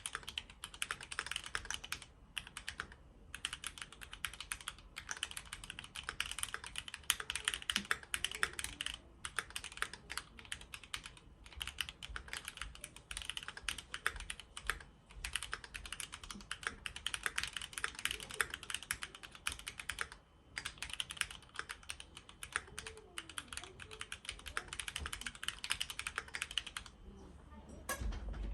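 Typing on a Keychron Q6 mechanical keyboard with tactile Gateron G Pro Brown switches and XDA-profile PBT keycaps: fast, continuous key presses with brief pauses every few seconds.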